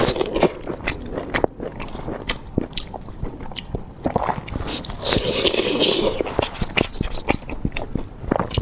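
Wet eating sounds of blood sausage in sauce: chewing, sucking and lip smacks heard as many quick wet clicks, with a longer wet squelching noise about five seconds in.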